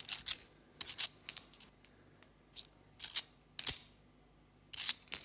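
UK 50p coins clicking against one another as they are picked up one by one and stacked in the palm: short, sharp metallic clinks at irregular intervals.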